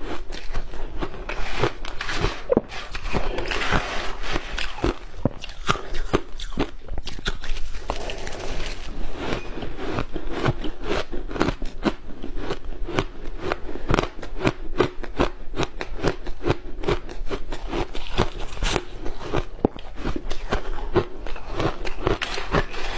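Soft shaved ice being chewed: dense, rapid crunching with no pause.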